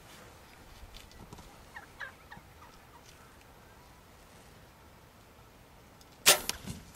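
A few short, soft calls from wild turkey toms, then near the end a bow shot: one loud sharp crack with a smaller knock just after it.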